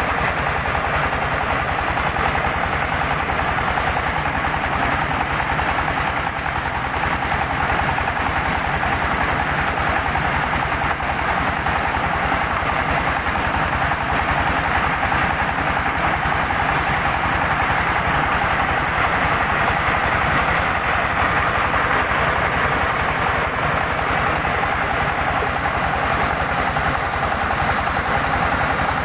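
Diesel-driven corn sheller running steadily under load as corn is fed through its threshing drum, with shelled kernels pouring out, a continuous, unchanging mechanical din.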